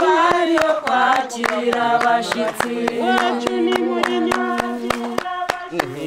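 A group of women singing together and clapping along in a steady beat, about three claps a second. A long held note under the singing stops about five seconds in.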